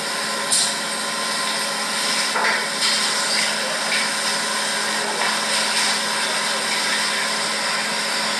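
Steady mechanical whir and hiss of motorised arthroscopy equipment running during knee arthroscopy, with a few light knocks over the first three seconds.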